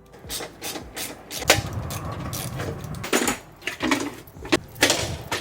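Old motorcycle rear fender being worked loose by hand: a busy run of knocks, scrapes and rattles.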